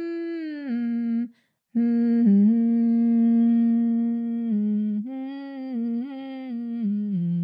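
A woman humming with closed lips as a vocal exercise. She holds a note, drops slightly, breaks off briefly just after a second in, then sustains a long steady hum on B flat before stepping up and down between nearby notes near the end.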